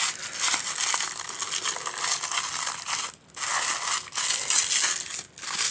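Paper and plastic packaging crinkling and rustling as it is handled and crumpled, with two short breaks.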